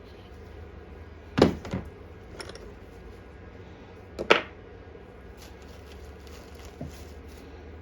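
Two sharp knocks of hand tools against metal parts, the first about a second and a half in with a lighter knock right after it, the second a little past four seconds. Between them are a few faint clicks of parts being handled during carburettor reassembly on a lawn mower.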